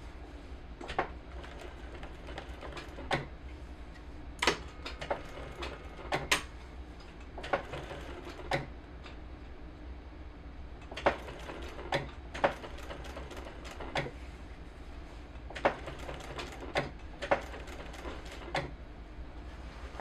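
Sewing machine stitching slowly and unevenly: irregular sharp clacks, some in quick pairs and clusters, over a low steady hum.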